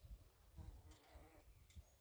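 Near silence outdoors, with a few faint low thumps.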